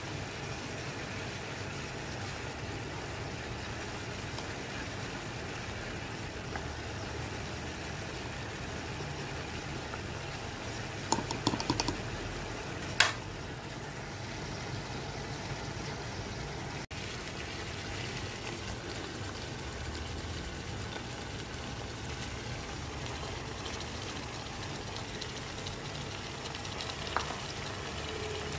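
Steady hiss and low rumble of meat and bones cooking in an aluminium pot over a gas burner. A few sharp knocks, typical of a spoon striking the pot rim, come about 11 to 13 seconds in, as the ginger-garlic paste goes in.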